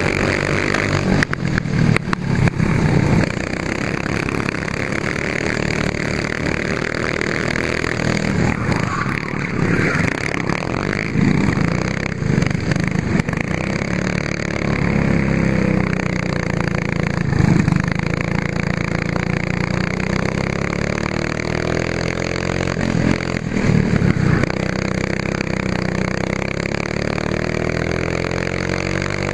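Racing kart engine heard from on board at race pace, its pitch rising and falling over and over as the kart accelerates and slows through the corners. A few sharp knocks and rattles cut in here and there.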